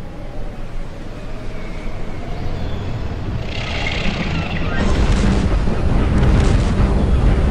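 Cannon fire from sailing warships: heavy booms over a low rumble, growing loud from about five seconds in.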